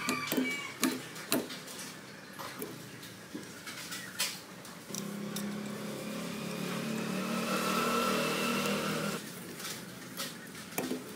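Scattered metal clinks and knocks of tools on metal, then a motor runs for about four seconds, swelling and cutting off abruptly.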